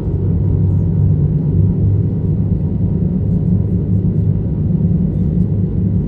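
A steady, loud low rumble with no distinct events in it.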